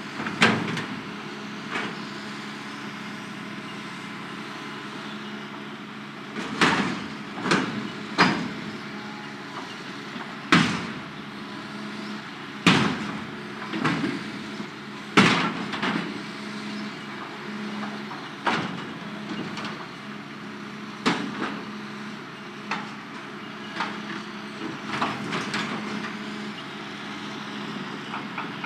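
A Hitachi hydraulic excavator's bucket repeatedly striking and denting a steel shipping container: about a dozen loud metal bangs at irregular intervals, each a few seconds apart, over the excavator's steady diesel engine.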